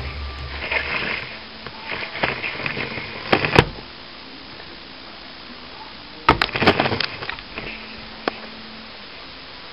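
A cat pawing and scrabbling at a narrow gap under wooden furniture: scattered knocks and scuffs against the wood and carpet, with a cluster of sharp knocks about three and a half seconds in and another around six to seven seconds in.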